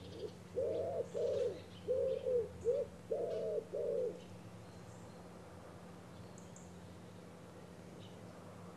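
A pigeon cooing: a run of about seven low hoots in short phrases over the first four seconds. Faint small-bird chirps and a low steady hum sit behind it.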